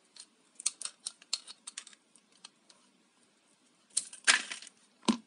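Pliers gripping and prying the plastic drive coupling off an Arzum hand-blender motor's shaft: a run of small clicks and snaps, then a louder scraping crunch about four seconds in and a sharp click near the end.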